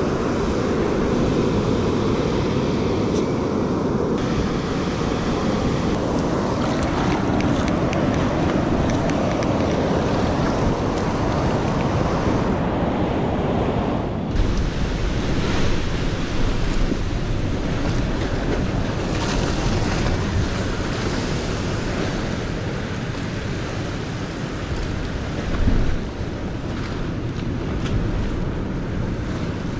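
Steady wash of ocean surf with wind rumbling on the microphone, the mix changing abruptly a few times.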